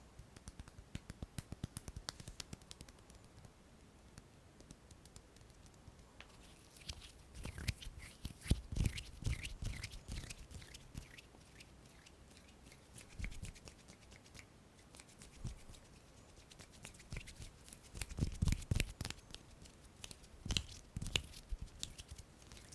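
Close-miked ASMR hand sounds: a run of light, quick taps or clicks over the first few seconds, then irregular bursts of crackly rubbing and scratching.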